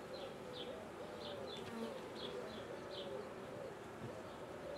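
Honeybees buzzing over an opened hive, a steady hum that wavers in pitch as bees fly close by. A short high chirp repeats about twice a second over it.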